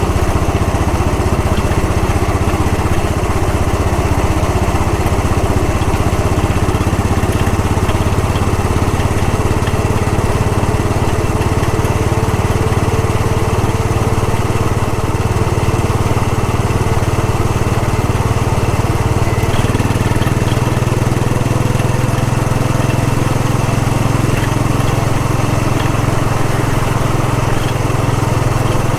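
Royal Enfield Bullet 500 EFI's single-cylinder four-stroke engine running steadily while the motorcycle is ridden, with a low thudding engine note; the note shifts about two-thirds of the way through.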